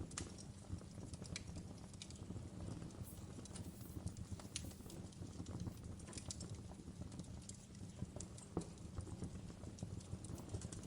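Wood fire crackling: irregular sharp pops and snaps over a faint, steady low rumble.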